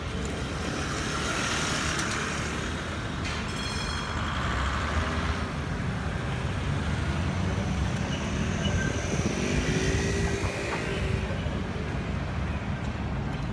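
Steady rumble of city street traffic, with a brief high-pitched squeal about three to four seconds in.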